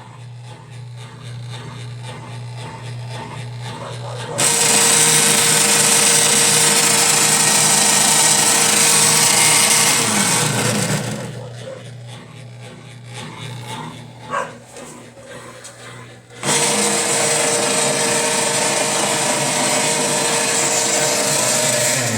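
Consul Facilite washing machine making an abnormal noise. A low hum at the start gives way about four seconds in to a loud, rough mechanical running noise that lasts about six seconds, winds down with a falling pitch, and starts again about six seconds later.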